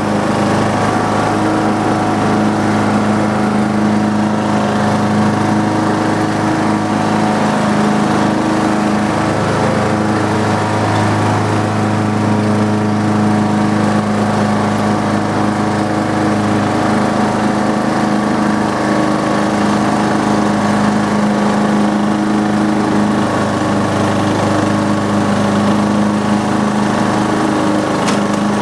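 Riding lawn mower's Briggs & Stratton engine running at a steady speed while mowing: a constant, even hum.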